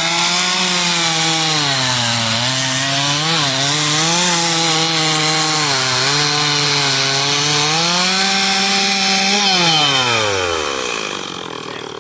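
Chainsaw revving up and cutting into the wood block of a bear carving. The engine pitch sags and recovers several times as the chain bites into the wood. About ten seconds in, it is let off and winds down to idle.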